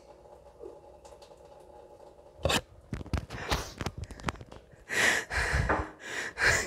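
A few sharp knocks and rustles of movement, then breathy bursts of laughter near the end.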